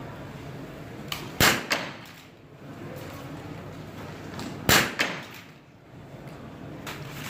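Two shots from a .22 biathlon rifle fired in the prone position, a little over three seconds apart, each ringing briefly in the tunnel range, with smaller clicks close to each shot.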